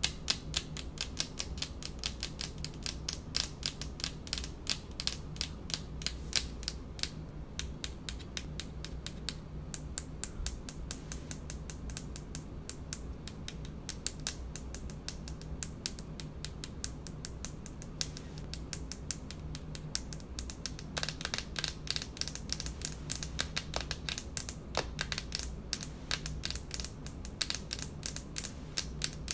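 Long fingernails tapping rapidly on a speckled countertop: a fast run of sharp clicks, several a second, softer through the middle and stronger again near the end. A faint steady low hum sits underneath.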